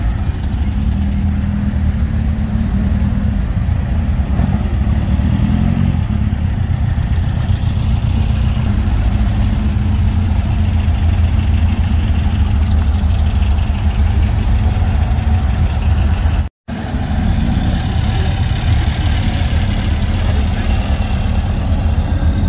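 Air-cooled flat-four engines of vintage VW Beetles running at low speed as the cars roll past one after another, a steady low rumble. The sound breaks off completely for a split second about two thirds of the way through.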